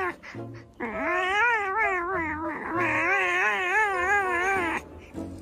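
Cat yowling in a long drawn-out call whose pitch wobbles up and down several times a second.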